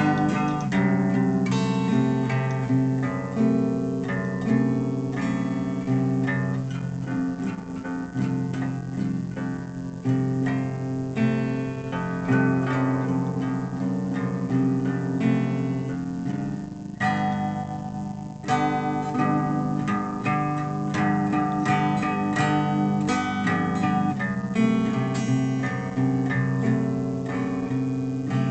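Guitar music, plucked and strummed notes ringing at a steady level.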